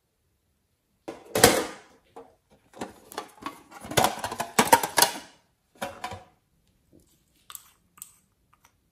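Clattering knocks and rattles of a pencil case being handled and opened, the loudest knock about a second and a half in. Near the end come a few light clicks as a small nail polish bottle is opened.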